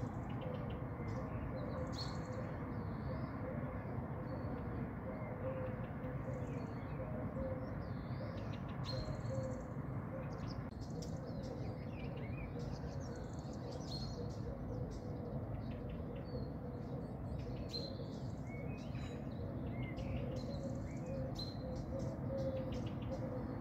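Steady hiss of a gas hob burner heating a cezve of Turkish coffee, easing about eleven seconds in. Scattered high chirps of small birds sound over it.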